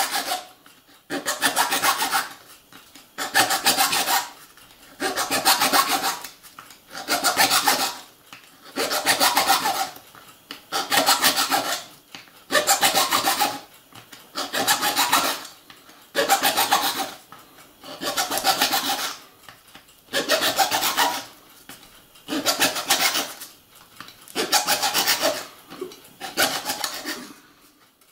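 Small hand file rasping on an H0 model-railway turnout (Piko A track) in slow, even strokes, about one every two seconds, each lasting about a second.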